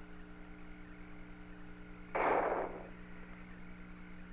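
Apollo air-to-ground radio channel between transmissions: a steady hum of several held tones, with one short hiss-like burst of static about two seconds in.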